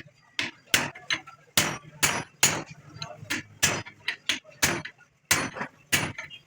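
Hammer blows on metal, about two sharp strikes a second in an uneven rhythm, some coming in quick pairs, each with a short ring.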